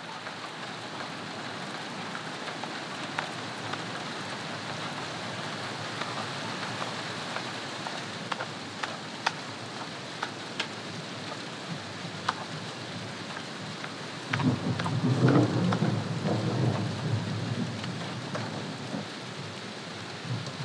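Steady rain falling, with separate drops ticking on nearby surfaces. About two-thirds of the way through, a low rumble swells for about three seconds and then fades.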